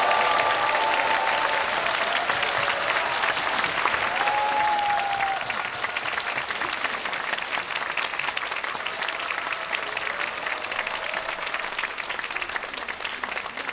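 Concert hall audience applauding after a song ends, with a few voices calling out in the first five seconds; the clapping slowly dies down toward the end.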